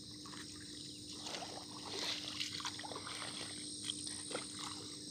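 Shallow water splashing and sloshing in short bursts as a person wades ashore, over a steady high-pitched background hiss.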